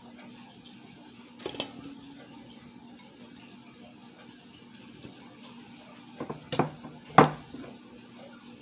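Kitchen handling sounds at a stainless steel mixing bowl: a short clatter about a second and a half in, then two louder knocks near the end, the last the loudest, over a steady low hum.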